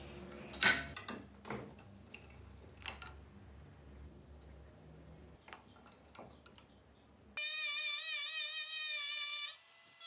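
Sharp clicks and knocks of a pocket knife with walnut scales being handled and set in a steel bench vise. About seven seconds in, a handheld rotary tool with a carving bit starts up with a steady high whine that wavers slightly in pitch, and it cuts out briefly near the end.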